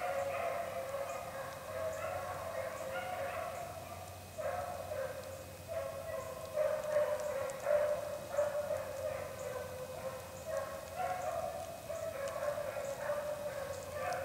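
A pack of beagles baying on a rabbit's trail, several hounds' voices overlapping in an almost unbroken chorus: the sound of the dogs running the rabbit.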